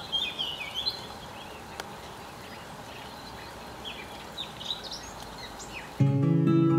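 Small birds chirping in short calls over a steady outdoor hiss. About six seconds in, acoustic guitar music cuts in abruptly and is louder than the birds.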